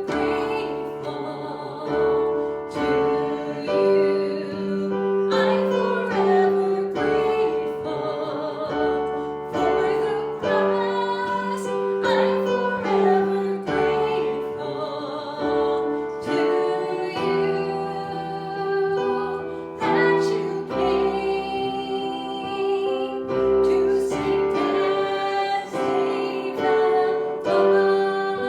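Music: a woman singing a slow song with piano accompaniment, holding long notes.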